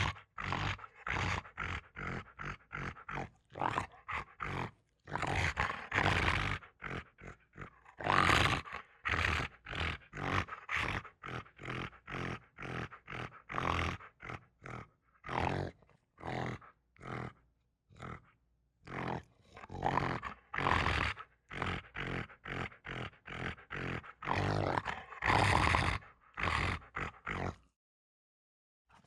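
A domestic dog making a long run of short, sharp vocal sounds, about two a second, some longer and louder than others, stopping shortly before the end.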